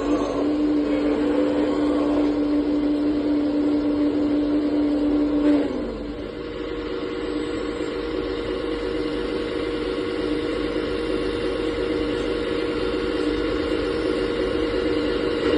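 Remote-control hydraulic excavator model running, its hydraulic pump and motor giving a steady whine. About five and a half seconds in the tone shifts to a different steady pitch, with a brief dip in level, as the load on the hydraulics changes.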